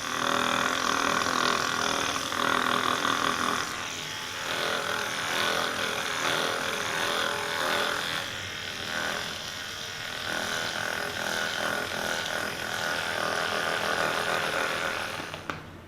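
A small electric motor buzzing steadily, swelling and fading a little in loudness, with no sharp cracks or knocks.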